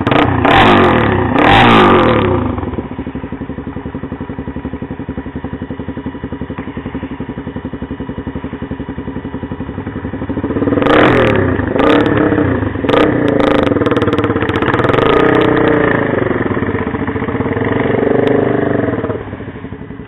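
ATV engine idling with a steady pulse, revved up twice briefly at the start, then revved again in a long stretch of rising and falling revs from about halfway through, dropping back to idle near the end.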